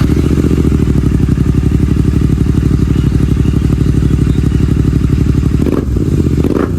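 Royal Enfield Continental GT 650's 648 cc parallel-twin engine idling through freshly fitted Red Rooster Performance aftermarket exhausts: a loud, fast, even exhaust pulse, blipped up in revs near the end.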